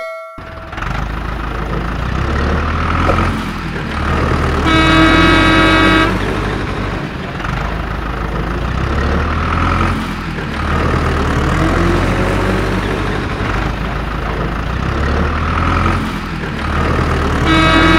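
A dubbed heavy-vehicle engine sound effect running steadily as a low rumble that swells and eases every few seconds, with a horn tooting once for about a second, about five seconds in, and again near the end.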